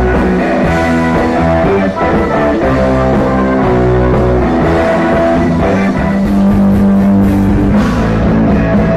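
Loud amplified rock music from a live band: electric guitar, bass guitar and drum kit playing continuously.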